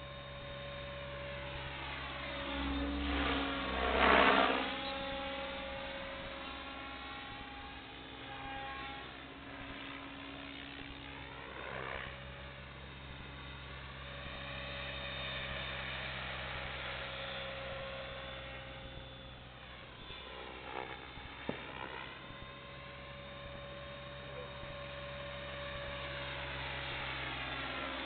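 Thunder Tiger Raptor E700 electric radio-controlled helicopter flying aerobatic figures. It gives a steady rotor and motor hum with a whine that rises and falls in pitch as it manoeuvres, and is loudest about four seconds in.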